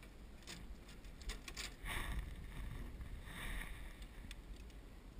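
Water swishing against a small boat in two soft swells, about two seconds and three and a half seconds in, with scattered light ticks and knocks over a low rumble.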